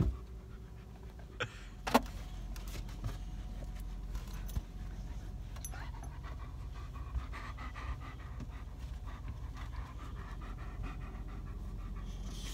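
Dogs panting inside a pickup truck's cab over a steady low vehicle rumble, with a couple of sharp knocks about one and a half to two seconds in.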